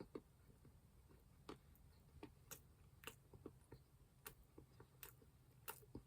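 Near silence, broken by faint, irregular mouth clicks from eating, about a dozen over the stretch.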